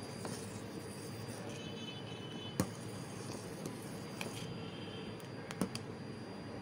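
Metal ladle stirring palm-fruit pulp and milk in a steel pot as it heats toward a boil: a few light clinks of ladle on pot, the sharpest about two and a half seconds in, over a steady low hiss.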